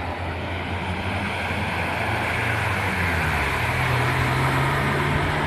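A motor vehicle's engine running, its pitch shifting about halfway through, over a steady rushing noise that grows slowly louder.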